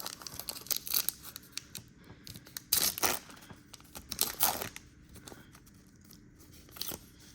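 Plastic wrapper of a trading-card pack being torn open and crinkled, in a few short rips and rustles, the loudest about three seconds in, fading to light handling near the end.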